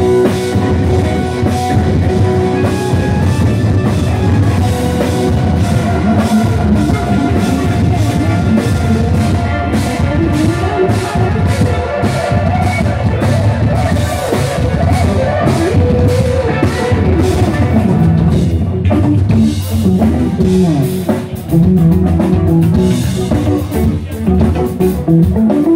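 Live rock band playing loudly: drum kit, bass guitar, electric guitar and keyboards, with sustained keyboard and guitar notes over a steady drum beat.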